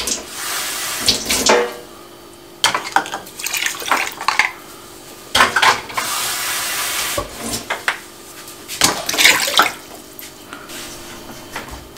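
Water poured from a cup into a stainless steel pot of sugar, in three separate pours, with sharp clinks of the cup against the pot between them.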